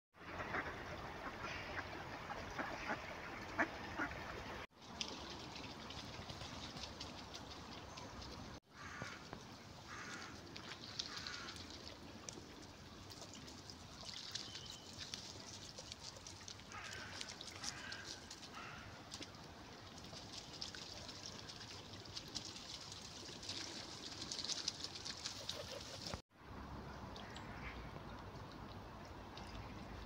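Mallard ducks quacking in short bouts over a steady outdoor wash of stream water.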